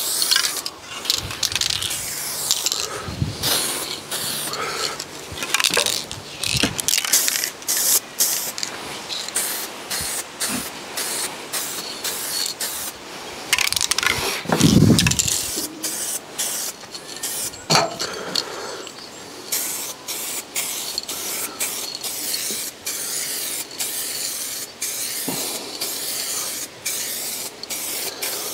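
Aerosol can of base-coat paint spraying a light dust coat onto a car wing panel, hissing in repeated short bursts that start and stop every second or two. A brief low thump about halfway through.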